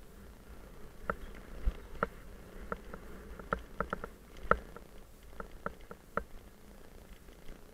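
Mountain bike rolling along a dirt woodland trail, rattling with irregular sharp clicks as it goes over bumps, over a low rumble from the tyres and wind.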